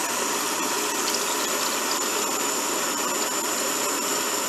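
Water pouring steadily from a plastic bottle into an empty backpacking cook pot, over the steady hiss of a small propane-butane canister stove burning with an open flame.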